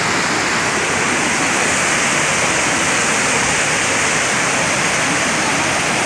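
Düden Waterfall's water crashing down, a loud, steady rush with no let-up.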